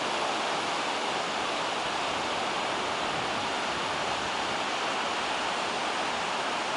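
Ocean surf on a beach, a steady rush of noise with no single wave standing out.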